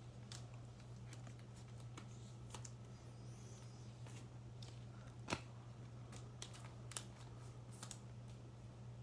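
Trading cards being handled and set down on a tabletop: faint scattered taps and slides, the sharpest about five seconds in, over a steady low hum.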